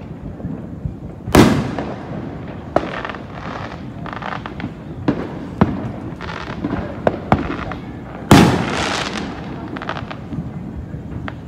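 Fireworks going off: two loud booms, about a second and a half in and about eight seconds in, each trailing off in an echo, with smaller pops and crackling between them.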